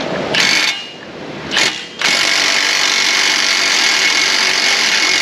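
Handheld power tool run in two short blips, then held on in one steady run of about four seconds, working on the tie rod end nut.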